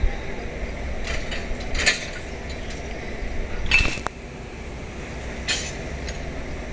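A few separate metallic clinks and knocks, one with a short ring, from the coupling gear as a railway locomotive is coupled to the train, over a low steady rumble.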